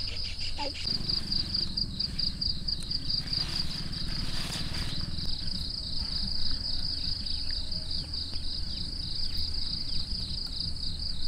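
An insect, cricket-like, calling in a steady high-pitched trill that pulses several times a second, over steady low background noise. A brief rustling hiss comes about four seconds in.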